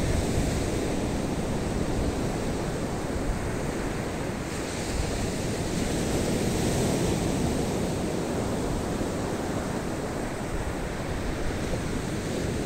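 Surf breaking on a sandy beach: a steady wash of waves, with wind rumbling on the microphone.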